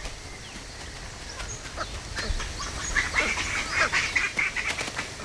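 Wild animal calls in tropical forest: a quick run of many short, high calls starts about two seconds in, over a faint steady forest background.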